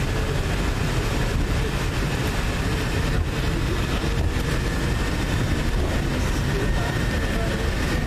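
Hong Kong Peak Tram funicular car running on its rails, heard from inside the cabin as a steady rumble. A faint high whine joins it in the second half.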